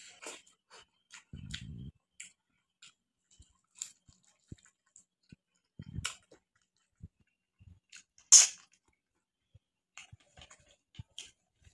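A person eating by hand: quiet chewing and scattered mouth clicks, with one louder sharp click about eight seconds in.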